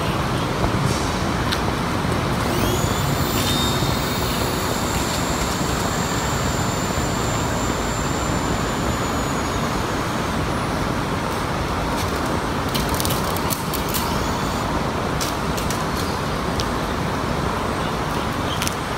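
Small toy helicopter's electric rotor motor whining: a thin high tone rises as it spins up about two and a half seconds in, holds steady for several seconds and then fades away. Under it runs a steady rushing background noise, with scattered sharp clicks in the later part.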